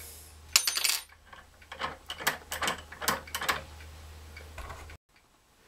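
Steel parts of a wire-bending jig clinking and tapping as the bending mandrel is swapped: a ringing metal clink about half a second in, then a run of lighter taps. The sound cuts off suddenly near the end.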